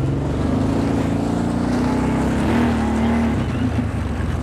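2010 Kawasaki Teryx's V-twin engine running, heard from the seat, its pitch rising and falling a little with the throttle.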